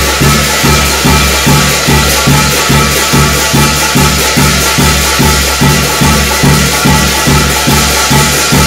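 Korean shamanic gut ritual music: a drum beating a steady, fast rhythm of about two and a half strokes a second, with jangling metal percussion over it.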